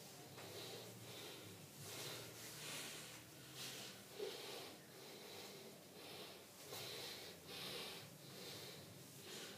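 Faint breathing: short hissy puffs about once a second over a low steady hum.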